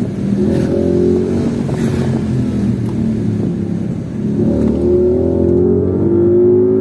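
Ford Mustang GT's 5.0 V8 engine heard from inside the cabin while driving. Its note runs steadily, then rises gently from about two-thirds of the way in as the car picks up speed.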